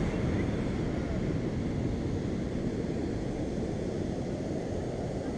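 Steady low rumble of wind on the microphone over ocean surf, easing slightly toward the end.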